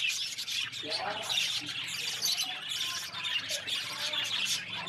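Birds chirping and squawking in a busy, continuous chatter.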